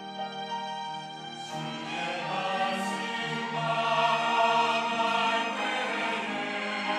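Church choir singing an anthem with instrumental accompaniment. Sustained instrumental notes give way about a second and a half in to the full choir, which grows louder through the middle.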